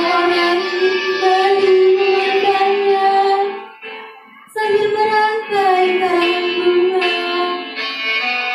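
A girl's voice singing long held notes through a microphone over instrumental music, breaking off briefly about halfway through.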